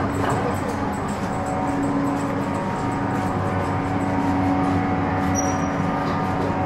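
Steady running hum of a vehicle over city street noise, with a few low tones held throughout. A short high beep sounds about five and a half seconds in.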